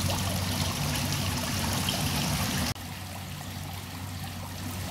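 Steady trickle of water running into a garden koi pond. Its level drops suddenly a little under three seconds in.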